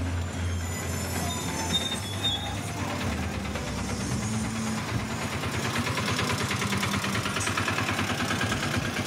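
Street traffic: a vehicle engine running close by, its sound turning into a fast, even pulsing that grows a little louder from about halfway in.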